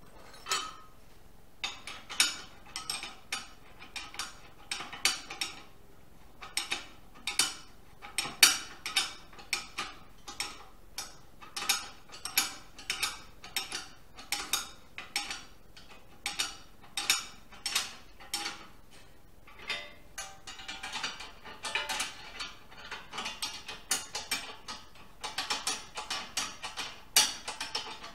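A ratchet spanner clicking in repeated short strokes on a steel assembly at the workbench, about one to two strokes a second, with metal clinks between them. The strokes come faster and closer together about twenty seconds in.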